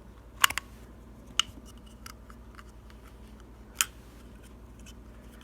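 A few sharp clicks and snaps of a Glock magazine's plastic base plate and parts being handled during disassembly: a double click about half a second in, then single clicks about a second later and near the end.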